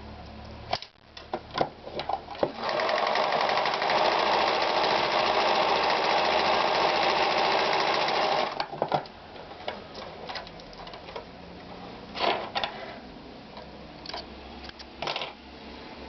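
Victoria 739 sewing machine running steadily at speed for about six seconds, with a few clicks before it starts and scattered clicks and knocks after it stops.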